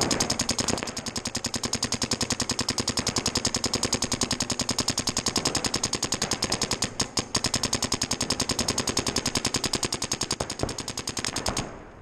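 Electronic paintball marker firing a rapid, even stream of shots, about a dozen a second, with a couple of brief breaks in the middle; the firing stops shortly before the end.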